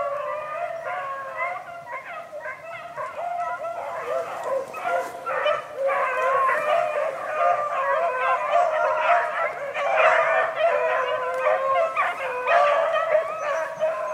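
A pack of beagles bawling and yelping together while running a swamp rabbit, many voices overlapping. The pack grows louder about five seconds in.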